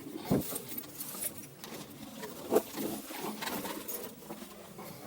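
Bottari Rapid T2 9mm steel snow chain being handled and threaded onto a car tyre: links clinking and scraping in short, irregular sounds, with two louder knocks, one just after the start and one about halfway.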